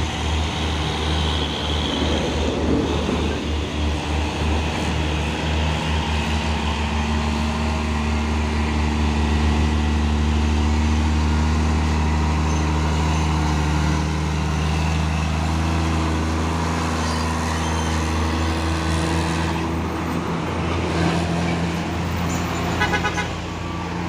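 Diesel engine of a Hino 500 tractor unit pulling a container trailer past, a deep steady engine note that throbs in the first few seconds and shifts pitch a couple of times later on.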